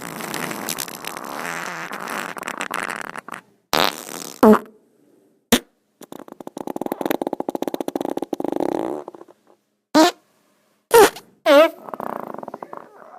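A series of farts of varied length, one after another. A long sputtering one comes first, then a few short blasts, then a long buzzing fart of rapid pulses. Near the end come more short blasts, some sliding quickly in pitch, and a softer sputter.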